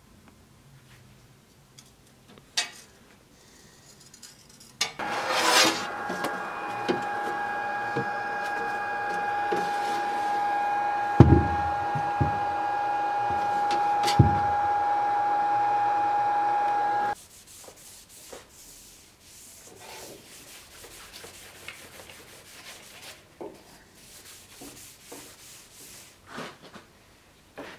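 A steady machine hum with a clear whine and a few dull thumps in the middle, which cuts off sharply about two-thirds of the way through. Then a blackened steel sword blade clamped in a vise is rubbed down by hand with a pad, in short uneven strokes.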